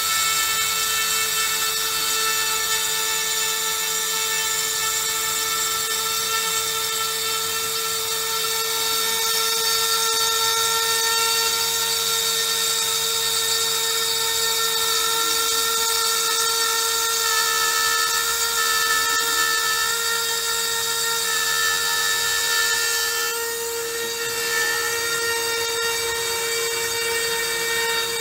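CNC router's high-speed spindle running steadily with a high whine as a small engraving bit cuts a drawing into a board. Underneath it a fainter lower tone glides up and down.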